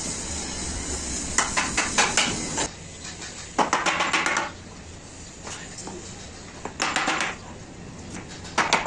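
Hammer driving nails into the corner joints of a wooden door frame made of softwood battens. The blows come in four quick runs of light taps, a couple of seconds apart.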